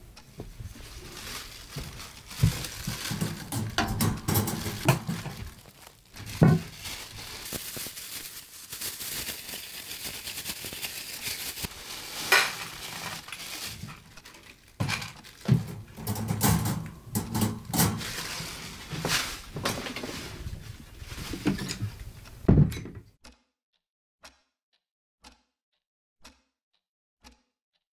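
Handling noises: a plastic bag crinkling, a food bowl and the wire cage knocking and rattling, with several sharp thumps. Near the end it cuts off suddenly, leaving only a clock ticking about once a second.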